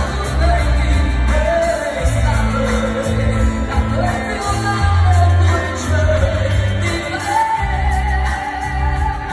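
Live concert music heard from the audience: a male singer performing a Vietnamese pop song over a band played through a loud PA, with strong sustained bass notes under the sung melody.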